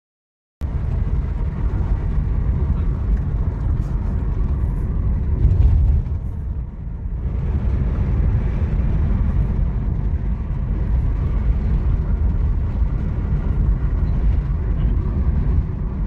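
Steady low rumble of a car on the move, road and engine noise, starting abruptly about half a second in.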